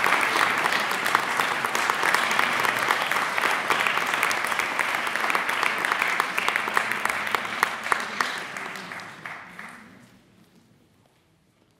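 Audience applauding, a dense patter of clapping that thins out and fades away near the end.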